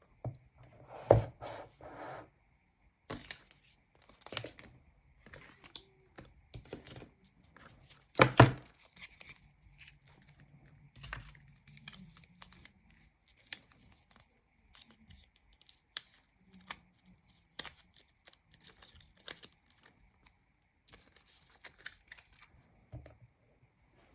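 Packaging of a new iPhone box being torn open and handled: irregular tearing and rustling with scattered small clicks and taps. The two loudest tears come about a second in and about eight seconds in.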